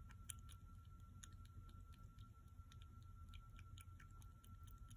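Kitten suckling milk from a feeding bottle: faint, irregular wet clicks and smacks of its mouth working the teat.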